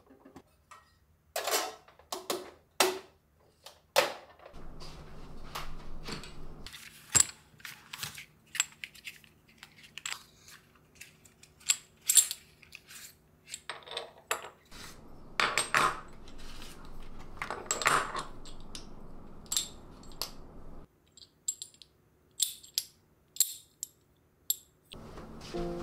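Close handling sounds on a tabletop: a string of sharp clicks, taps and light knocks. Metal tea tins are moved first, then a small box of folding hooks is opened and the hooks are picked up, folded and set down.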